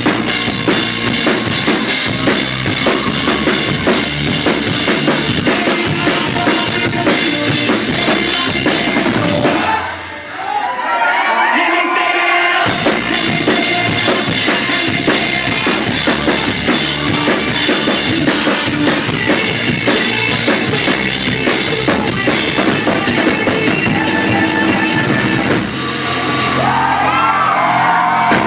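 Rock drum solo on a full drum kit played live, with fast, dense bass drum and cymbal hits. About ten seconds in the drumming briefly drops away and crowd cheering comes through before it picks up again; more cheering rises near the end.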